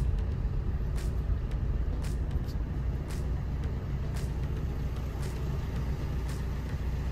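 Car engine idling, a steady low hum heard from inside the cabin while the car crawls at walking pace and comes to a stop. Faint ticks sound about once a second throughout.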